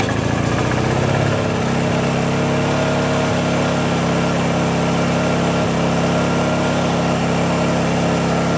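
Small Honda portable generator's engine running steadily just after a cold start. Its note wavers for about the first second, then settles to an even speed.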